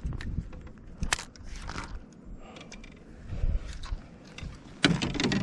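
Irregular clicks and scrapes of a small hooked bass and fishing gear being handled at a kayak, with a louder cluster near the end.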